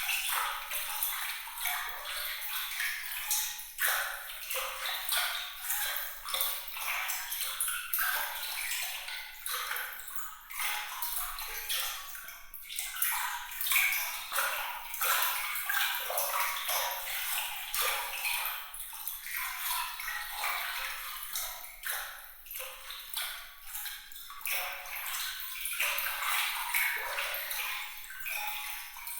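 Glittering water sound effect: a continuous stream of tiny bright plinks, drips and trickles of moving water, thin and high with no low rumble.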